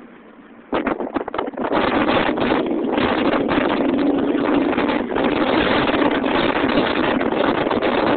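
Subaru Impreza WRX STI on the move, with wind rushing and buffeting on the microphone over the car's engine and road noise. Quiet for the first moment, then loud from under a second in.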